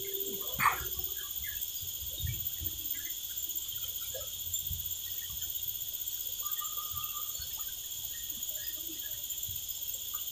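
Steady high-pitched chorus of insects, with a short louder sound under a second in and a brief held whistled note about six and a half seconds in.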